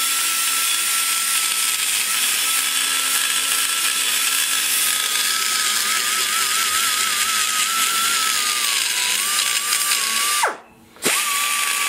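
Die grinder spinning a large carbide burr that cuts the aluminium of a Big Block Chevy cylinder head's exhaust port, rolling down the valve guide boss: a steady high whine with hiss. The pitch wavers and dips a little partway through, and about ten and a half seconds in the grinder winds down and cuts out for half a second before spinning back up.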